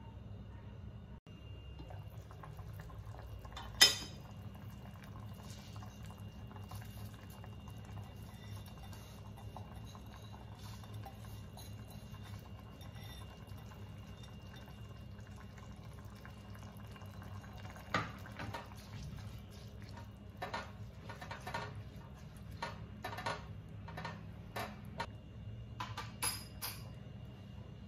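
Cooking pot sounds over a steady low hum: one sharp metal clink about four seconds in, quieter handling of the pot while rice is tipped into a simmering tomato mixture, then a quick run of clinks and taps on the pot near the end.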